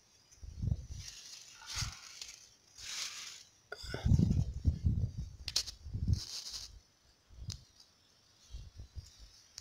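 Grass and reed stems rustling and brushing against a handheld phone as it moves through waterside vegetation, with a couple of sharp clicks and low handling bumps on the microphone.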